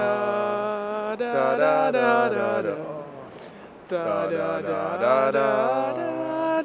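Music of sustained, chant-like sung tones in several voices together, in two long phrases with a short lull about three seconds in.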